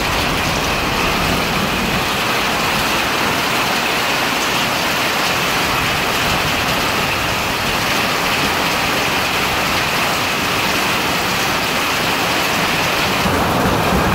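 Heavy storm rain pouring steadily onto a metal carport roof and streaming off its edge, a dense even hiss with no let-up; this is the leading edge of the storm, before the hail arrives.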